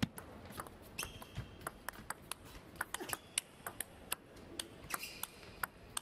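Table tennis rally: the celluloid-type plastic ball clicks sharply off rackets and table in quick succession, several hits a second, the loudest at the serve. Short squeaks of shoes on the court floor come about a second in and again about three seconds in.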